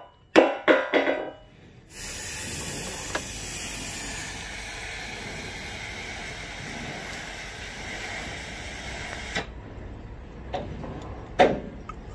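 A hammer striking a steel truck spring shackle a few times, each blow ringing, then a steady spray hiss for about seven seconds that cuts off suddenly, and a few more ringing metal clanks near the end.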